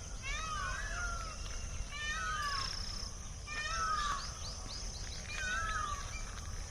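An animal calling, short phrases of swooping notes repeated about every one and a half seconds, over a steady high hiss and a low rumble.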